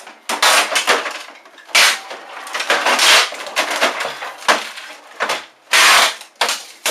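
Adhesive fixing tape being pulled off the roll in a string of short, loud, irregular rips, about ten of them.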